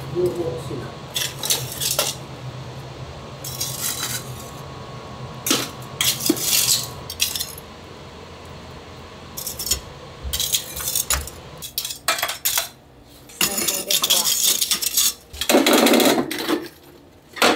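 Metal kitchenware and dishes clattering and clinking as they are handled, in an irregular string of short knocks and scrapes, over a low steady hum.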